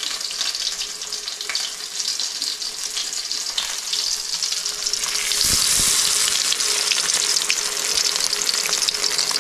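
Masala-coated fish pieces sizzling and crackling as they shallow-fry in a small pool of hot oil in a kadai. The sizzle grows louder about five seconds in as more pieces go in, with a soft low knock at about the same moment.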